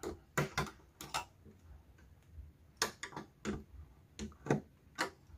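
A 10 mm wrench tightening the nut on the antenna's pipe mounting clamp: a series of short, irregular metal clicks, a few a second.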